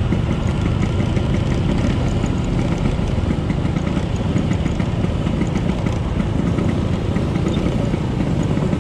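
Classic Vespa scooter's two-stroke single-cylinder engine running steadily at low speed, heard close up from the handlebars.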